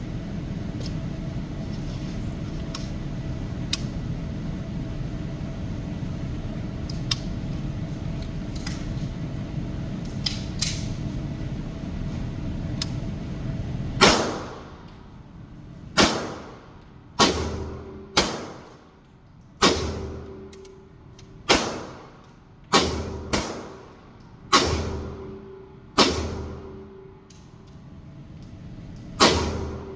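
A steady low hum with a few faint clicks, then from about halfway in, about eleven single gunshots fired one at a time at uneven intervals of one to three seconds, each shot echoing and dying away over about a second.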